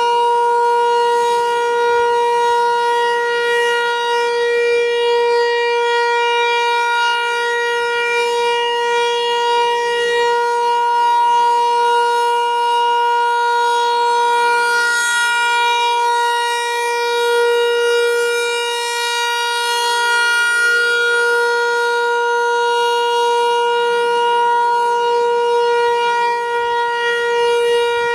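Federal Signal 508-128 outdoor warning siren sounding a steady single tone during a test. The loudness swells and dips gently.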